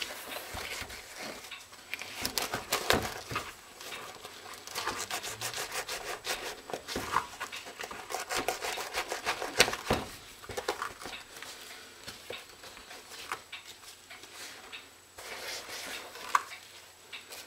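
A Nike LeBron sneaker being worked over by hand with a small tool to destroy it: irregular rubbing, scraping and clicking of the shoe's fabric and rubber. The noises are busiest in the first half and sparser later, with one sharp click near the end.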